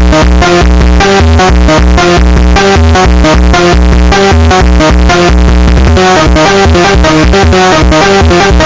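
Sped-up Brazilian funk montagem track: loud, fast electronic music with heavy bass hits and a repeating synth pattern. About six seconds in, the deep bass pattern changes and thins out.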